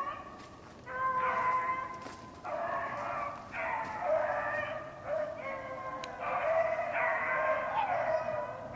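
A pack of beagles baying on a rabbit's trail, several voices overlapping in drawn-out calls: the hounds are running a rabbit.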